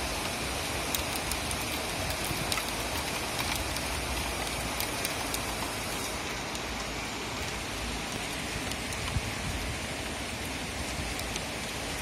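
Steady rain falling, with scattered sharp ticks of single drops striking close by, more of them in the first half.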